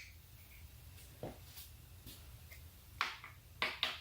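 A few light clicks and taps from handling parts, over a low steady hum. There is one faint tap about a second in and three sharper clicks in the last second.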